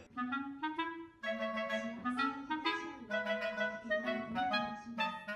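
Background music: a light melody of short, separate notes over a steady lower line.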